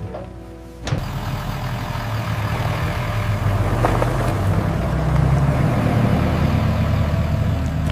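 Pickup truck accelerating hard out of loose gravel onto pavement: the engine running under load with tyre and gravel noise, starting suddenly about a second in and getting louder over the next few seconds.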